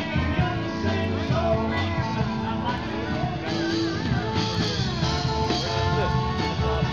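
Live band music played through PA speakers: guitar and drums with a singing voice.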